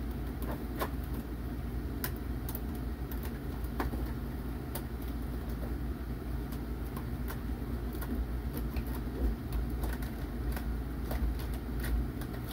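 Irregular small clicks and rattles of plastic toy parts and packaging being handled and pried loose, over a steady low hum.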